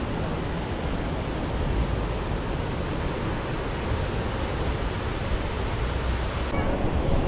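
Ocean surf washing on a beach, a steady rush, with wind buffeting the microphone.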